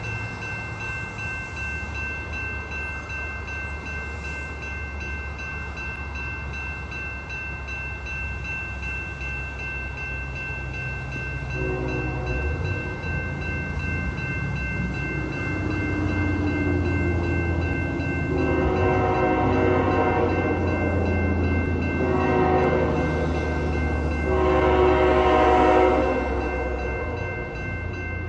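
Approaching CN GE ET44AC diesel freight locomotive: its engine's low drone grows louder from about twelve seconds in. Its air horn sounds a long, long, short, long sequence, the grade-crossing signal, with the final long blast the loudest. A steady high ringing tone runs underneath throughout.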